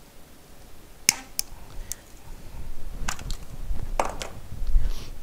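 Cutters snipping off the tails of plastic zip ties: a few sharp snips, two about a second in and two more around three and four seconds in.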